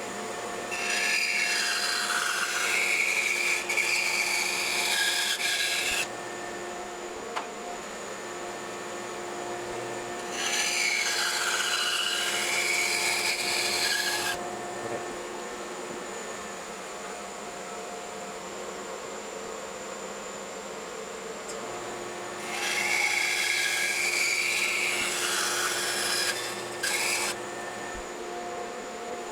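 Bandsaw running steadily with a hum, its blade cutting through wooden drawer blanks three times, each cut lasting about four seconds, to take the front and back off a drawer. A short extra burst of cutting follows the last cut.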